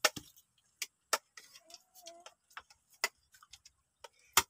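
Spoons clinking against plates as several people eat: sharp, irregular clicks, the loudest just before the end. A short faint voice-like sound about two seconds in.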